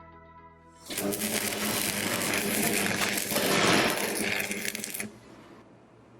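Handheld laser welder firing on metal with TIG rod fed in as filler: a dense, crackling sizzle that starts about a second in, runs for about four seconds and cuts off suddenly.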